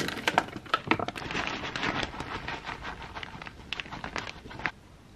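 Plastic food packets crinkling and rustling as diced ham and then grated cheese are shaken out into a ceramic bowl, a dense run of small crackles that stops about four and a half seconds in.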